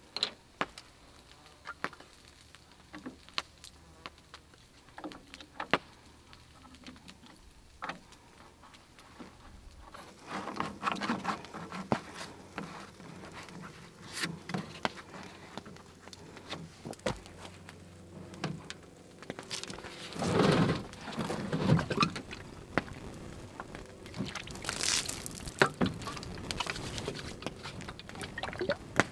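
Plastic water jug being handled as its white spout is fitted: scattered small clicks and taps of hard plastic, with stretches of rubbing and fumbling about ten seconds in and again about twenty seconds in.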